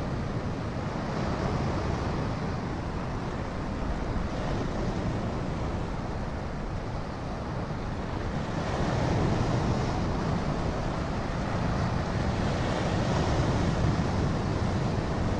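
Steady rush of wind and surf, with wind buffeting the microphone; it swells louder about halfway through and again near the end.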